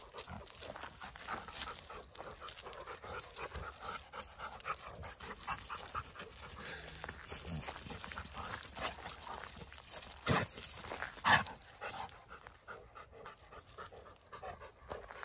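Two large dogs play-fighting on gravel, panting, with paws scuffing the stones. Two louder sharp sounds come about a second apart, roughly two-thirds of the way through.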